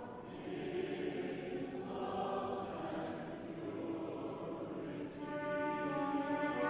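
Choral music: a choir singing slow, sustained chords. About five seconds in, brighter held instrumental tones join in.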